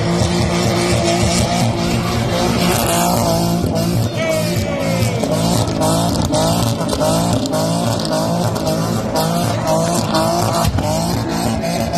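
Ford Barra inline-six in a Commodore burnout car revving hard while its rear tyres spin and squeal in a burnout. The engine note surges up in pitch again and again, about twice a second.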